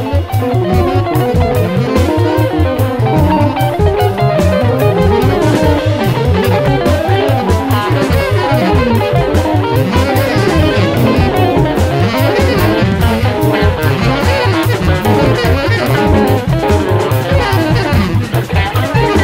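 Live jazz-electronica band playing: an archtop electric guitar picks a busy melodic line over drum kit and a steady, fast-pulsing low bass.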